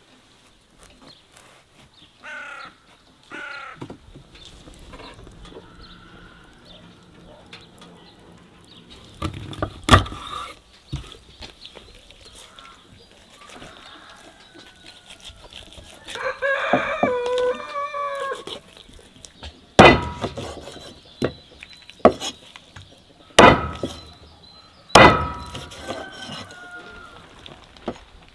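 A rooster crows once, a call of a couple of seconds just past the middle, with two short fowl calls a couple of seconds in. Several loud, sharp chops of a knife through raw chicken onto a wooden cutting board fall in the second half and are the loudest sounds.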